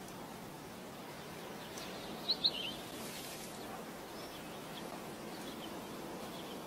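Steady outdoor background hiss with a few short, high bird chirps: a quick loud pair about two seconds in, then several fainter ones.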